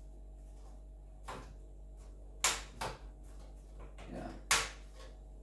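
A handful of short, sharp clicks and knocks, the two loudest about two and a half and four and a half seconds in, from parts being fitted against a PC case's thin sheet metal.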